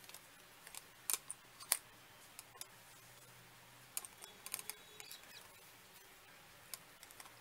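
Light plastic and metal clicks and knocks from a Nova 3110 tripod being handled, its plastic three-way head and folded aluminium legs turned over in the hands. A few sharp clicks come about a second in, and a cluster around four to five seconds.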